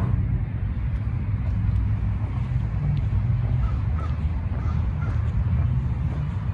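Outdoor park ambience: a steady low rumble, with four short faint bird calls about halfway through.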